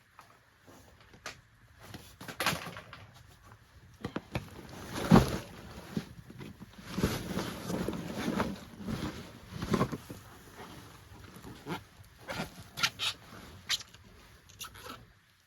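Clothing, pack and gear scraping, rustling and knocking against rock as a hiker crawls through a tight gap between boulders, with a loud knock about five seconds in.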